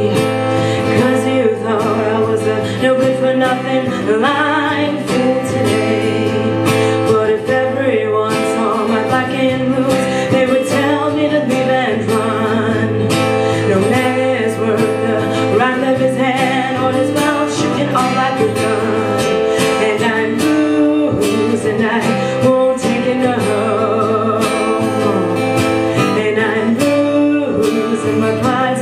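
A live song: a singer's voice held over a plucked and strummed guitar accompaniment, playing without a break.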